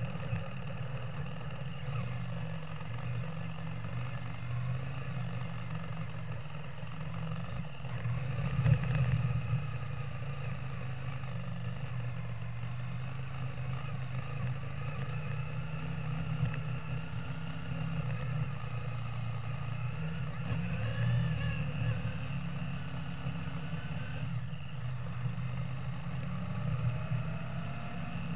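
Yamaha XV535 Virago's V-twin engine running steadily while the motorcycle rides a muddy forest dirt track, with a brief louder knock about nine seconds in and the engine note rising and falling around twenty seconds in.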